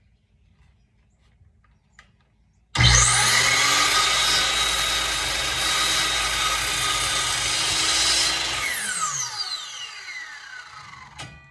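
Electric miter saw started about three seconds in, running at full speed through an angled cut in a wooden board for about five seconds, then released, its motor and blade winding down with a falling whine.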